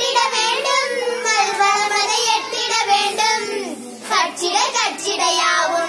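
Young girls singing a Tamil verse together, unaccompanied, with a short breath pause about four seconds in.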